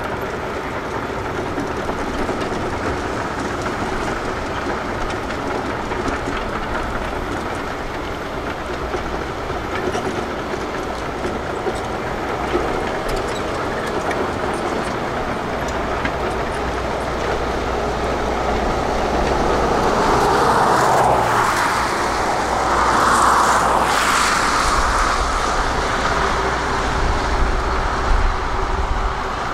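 Heavy diesel construction machinery running steadily with a constant whine. It swells into a louder, rougher noise for a few seconds around two-thirds of the way through.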